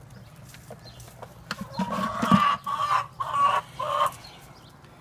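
Backyard chickens calling loudly, a string of several raised calls starting about a second and a half in, with a dull knock among them.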